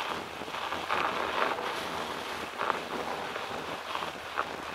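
Wind buffeting the microphone of a moving bicycle, over the steady hiss of tyres rolling on packed snow, with a few short louder crunches.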